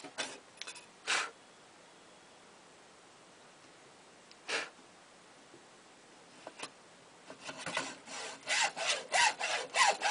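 Fine, thin-bladed hand saw cutting through a wooden shotgun buttstock, trimming away the rotted part of the comb. Two strokes, a pause with a single stroke midway, then quick back-and-forth strokes, about three a second, start up again near the end.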